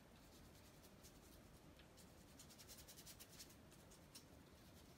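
Faint, soft scratching of a paintbrush stroking paint onto paper, a run of short strokes clustered about halfway through.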